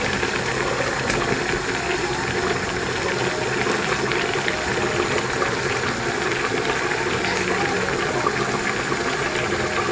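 Okra soup boiling in a pan under a glass lid: a steady, dense bubbling and hissing.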